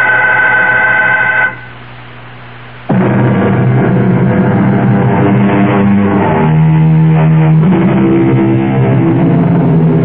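A held note ends about a second and a half in; after a short quieter stretch, radio-drama incidental music starts about three seconds in, with low sustained notes that shift in pitch a few times.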